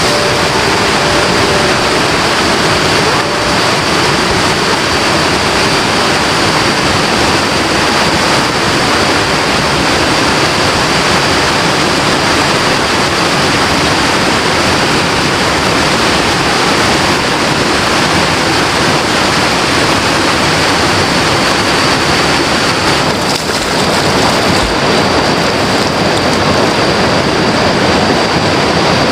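River water rushing steadily, with a thin, steady high-pitched tone above it.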